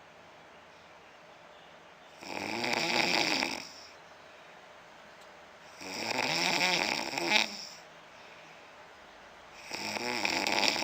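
A man snoring: three long snores, one about every four seconds, with quiet breathing between them.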